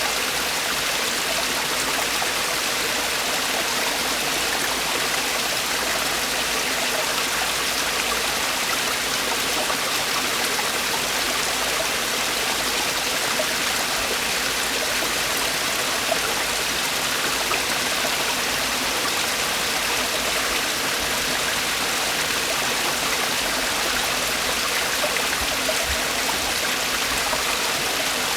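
Mountain stream water falling and rushing over rocks in a steady, unbroken hiss.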